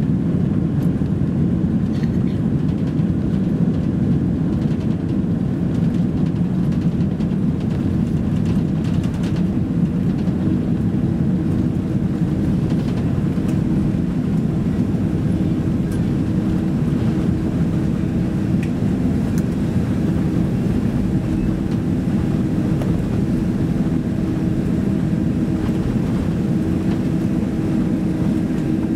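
Cabin noise of a Boeing 767-300 airliner rolling out on the runway after touchdown, ground spoilers up: a steady, loud low rumble from the engines and wheels. A faint steady hum joins it about halfway through.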